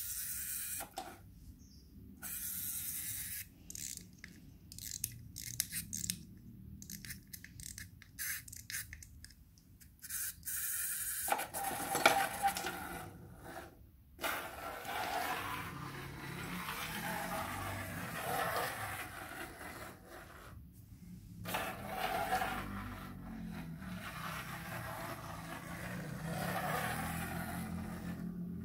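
Small plastic toy train pushed by hand along a moulded plastic playset track, scraping. It comes in short strokes with gaps at first, then runs more continuously through the second half, with one sharp click near the middle.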